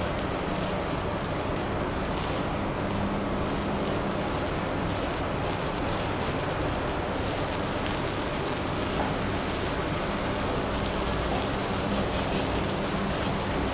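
Number-shaped sparkler burning with a steady hissing crackle, over a low steady hum.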